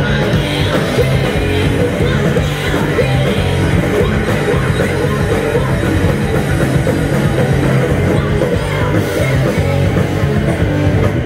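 Live rock band playing loud, with electric guitars and drums and a woman's vocals into a microphone.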